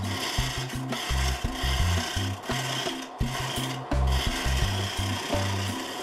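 A gouge scraping and cutting a spinning wooden blank on a wood lathe, a steady rasping hiss that breaks off briefly now and then as the tool leaves the wood, while the blank is roughed toward a cylinder. Background music with a stepping bass line plays alongside.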